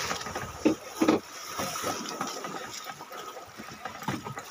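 Steady boat-at-sea noise on a small fishing boat's deck, with a faint constant hum, as a fisherman handles a freshly caught dorado and handline: two short knocks about a second in, then small scattered clicks.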